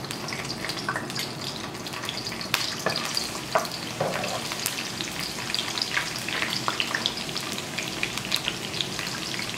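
Minced garlic sizzling in hot cooking oil in a wok, stirred with a wooden spatula, with scattered crackles and pops throughout.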